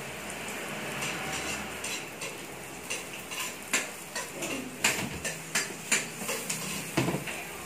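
A metal spatula stirring sautéing garlic and onions in a stainless steel wok, clinking and scraping against the pan. Irregular taps come more often after about three seconds, over a steady hiss.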